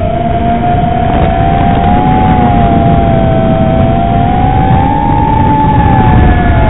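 Brushless motors and propellers of a 5-inch FPV quadcopter (Brotherhobby Venom 2206 2600KV) whining in flight, the pitch drifting up and back down as the throttle changes, over a rough rushing noise.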